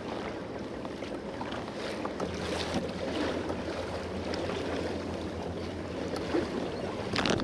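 Water lapping and splashing against a pedal kayak's hull as it moves through choppy harbour water, with some wind on the microphone.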